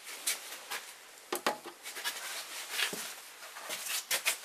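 Plastic trim-removal tool prying at a Subaru Forester SH tail lamp, trying to free its stiff clips: irregular clicks, taps and short scrapes of plastic on plastic.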